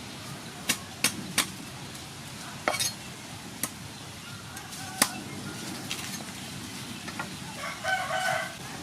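A few sharp knocks and clicks at irregular intervals over a low background hiss, then a rooster crowing for about a second near the end.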